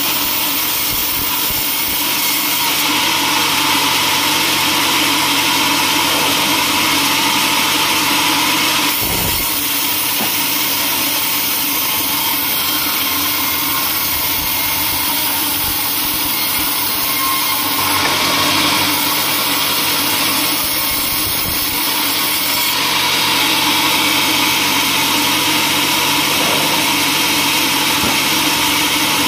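Band sawmill running with its blade cutting through a teak log: a loud, steady sawing noise over the machine's low hum, which changes in tone a few times.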